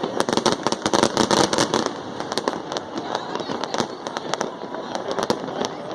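Fireworks bursting in rapid succession, a dense run of sharp bangs and crackles in the first two seconds that thins to scattered pops afterwards.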